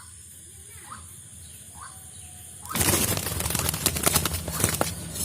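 Faint short rising chirps about once a second, then, a little under three seconds in, a sudden loud flurry of wing flapping from a dove beating its wings hard.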